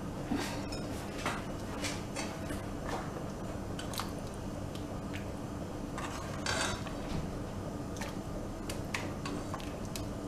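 Metal ladle scooping thick curry gravy in a metal cooking pot, with occasional light clinks of metal on metal and a longer scrape about six and a half seconds in. A steady low hum runs underneath.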